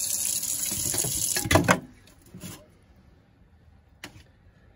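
Kitchen faucet running into a stainless-steel sink where water stands over a drain that is still clogged. A couple of clunks come just before the water cuts off suddenly, about two seconds in. A single faint click follows near the end.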